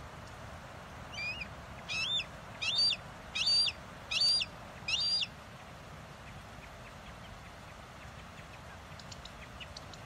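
Red-shouldered hawk calling: a series of six short screaming calls about seven-tenths of a second apart, beginning about a second in, the first one fainter, ending after about four seconds.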